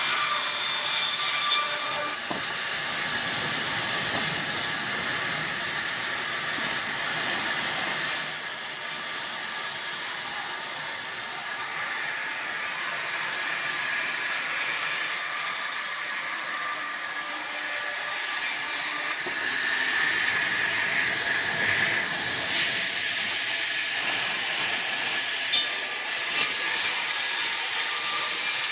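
Large carpenter's band saw running and ripping a log lengthwise into boards: a steady, loud hissing cutting noise whose character shifts a few times as the cut goes on.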